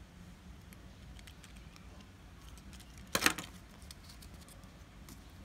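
Hands handling a small plastic toy car and a paper sticker sheet: faint scattered clicks and taps, with one brief, louder burst of handling noise about three seconds in.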